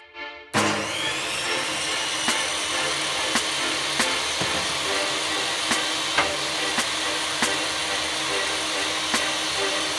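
Electric bench-top table saw switched on about half a second in, its motor spinning up to a steady high whine, then running as a pallet board is pushed through the blade, with scattered irregular ticks.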